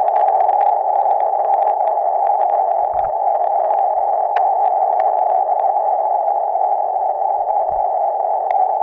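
Amateur radio transceiver's receiver hiss on the 20-meter band: steady, narrow hiss with no Morse signal in it, broken by a few faint clicks of static.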